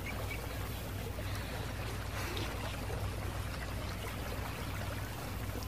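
Steady rushing of flowing water, with a low hum underneath.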